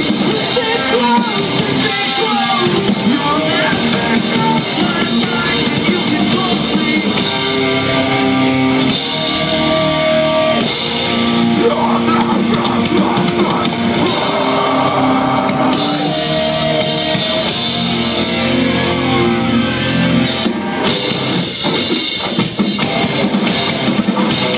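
Live metalcore band playing loud, with distorted electric guitars, a drum kit and vocals, heard from the audience.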